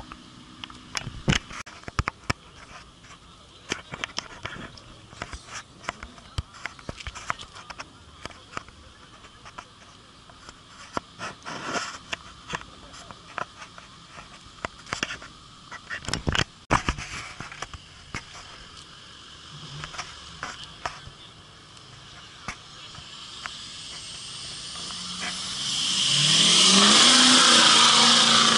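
A vehicle's engine accelerating hard near the end, its pitch rising under a loud rushing hiss, then cutting off. Before that there are only scattered clicks and knocks.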